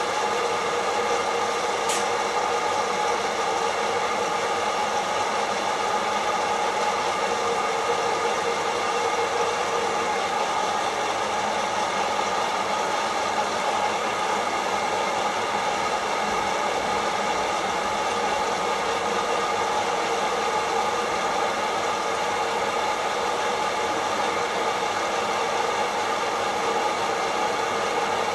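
Kaffelogic fluid-bed coffee roaster running mid-roast: its fan blows hot air up through the roasting chamber in a steady whirr with several fixed tones. A single sharp click sounds about two seconds in.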